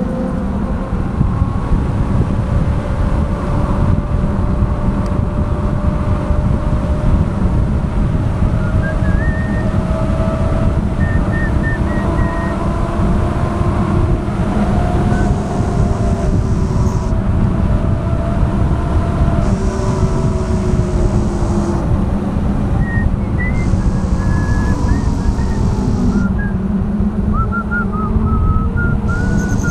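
Vehicle engine running while driving over heavy road rumble, its pitch drifting slowly up and down.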